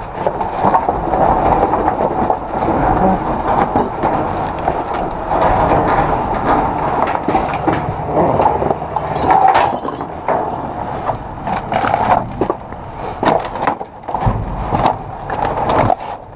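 Junk being rummaged through and handled: continuous rustling and scraping, with many small knocks and clatters.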